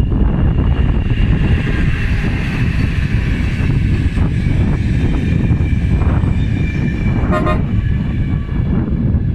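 Train passing close by with a loud, steady rumble, and a short, high toot of its horn about seven seconds in.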